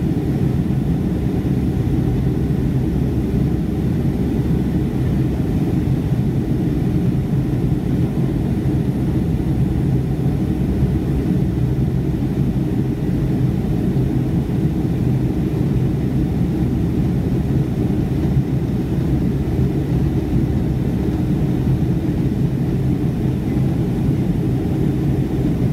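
Steady low roar of a Boeing 757-200's engines and airflow heard inside the cabin over the wing during the climb after takeoff, with a constant low hum running under it.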